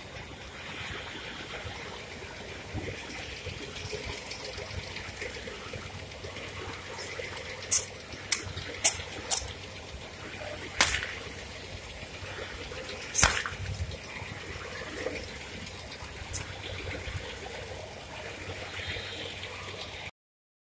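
Balloons being blown up by mouth: breathy air noise throughout, with six sharp snaps of the rubber about eight to thirteen seconds in.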